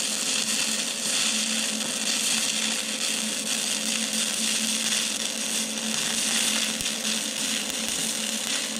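Shielded metal arc (stick) welding arc from an E308L-16 stainless steel rod at 60 amps, a steady crackling hiss as a short bead is run on mild steel.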